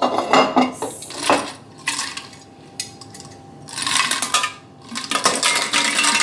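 Nespresso Vertuo coffee pods clattering and clinking against glass as they are tipped from one glass canister into another, in several short bursts of rattling.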